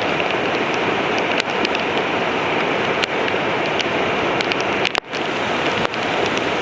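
Rain-swollen mountain river rushing in a steady, loud torrent, with sharp scattered ticks of raindrops falling during a typhoon downpour. The sound briefly drops out about five seconds in.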